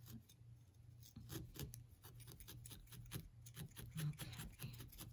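Barbed felting needle stabbing repeatedly into a ball of wool roving, a rapid run of faint crisp pokes several times a second, starting about a second in.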